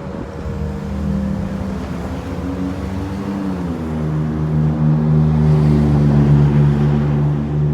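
ASC Tempest T128 warning siren winding down, its tone fading with a slowly falling pitch after the test. Under it a low engine-like hum of a running vehicle, which drops in pitch about three and a half seconds in and then holds steady as the loudest sound.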